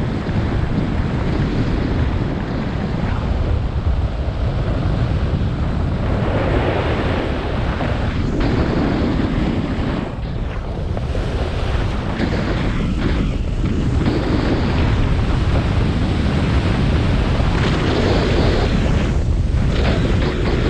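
Wind buffeting an action camera's microphone during a snowboard run, with the board scraping over the snow in swells every couple of seconds as it turns.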